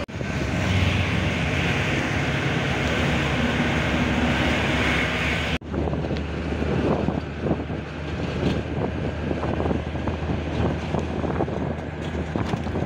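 Inside a moving 3/4 bus: steady engine drone and road noise, with wind rushing in through the open door. The sound breaks off abruptly about halfway through and carries on with more knocking and rattling.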